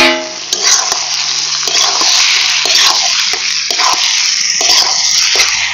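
Raw pork pieces sizzling as they fry in spice paste and mustard oil in a metal kadai, stirred with a metal ladle that scrapes and knocks against the pan. A short metallic ring sounds at the very start.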